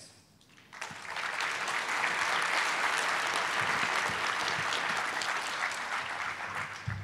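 Audience applauding: the clapping starts about a second in, holds steady, and dies away near the end.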